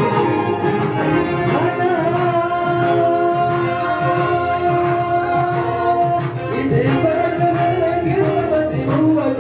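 Eritrean dance song with singing over a steady beat: a long held note through the middle, then a wavering, ornamented melody line near the end.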